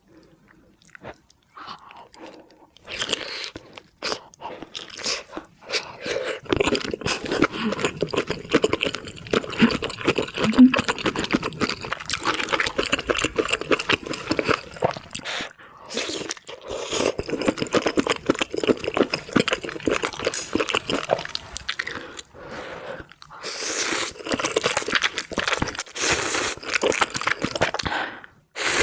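A person chewing and biting into spicy squid ramen: a dense run of crackling mouth sounds with a few brief pauses.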